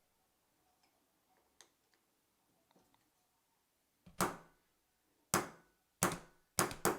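Five sharp knocks in under three seconds, starting about four seconds in, as a tool taps the pivot pin out of a SRAM Red shifter lever. Faint small clicks of handling the parts come before them.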